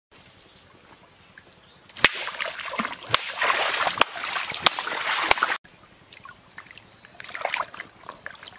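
Water splashing and sloshing in a river, loud with sharp slaps for about three and a half seconds starting two seconds in, cut off abruptly, then quieter splashing.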